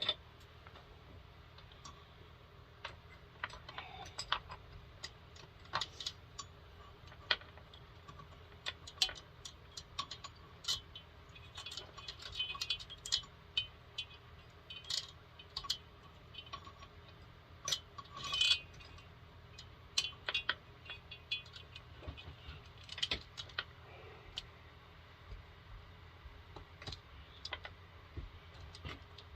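Scattered metallic clicks, clinks and short chain-like jingles as a chainsaw bar and chain are handled and fitted onto the saw, over a steady low hum.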